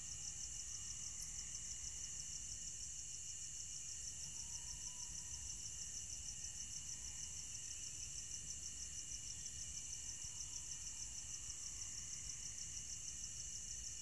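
A chorus of crickets chirping at night: a steady, high, rapidly pulsing trill that goes on without a break, over a soft low background rumble.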